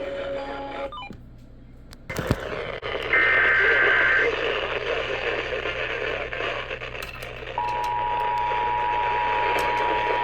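Radio hiss with a brief warbling burst of EAS digital header tones about three seconds in, then the steady two-tone Emergency Alert System attention signal starting near the end, the signal that announces an alert message is about to follow.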